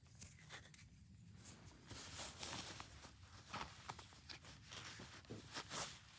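Faint scuffing and crunching of a shoe on loose dirt and gravel, starting about two seconds in, with a few sharp ticks among the scraping.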